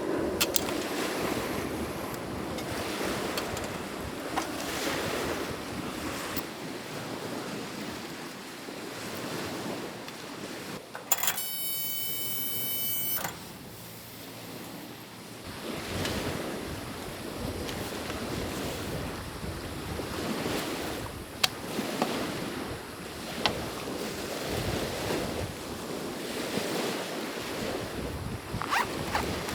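Strong wind gusting over a lakeshore, with waves washing in, buffeting the microphone. About a third of the way in there is a brief high tone lasting about two seconds, and a few sharp clicks come later.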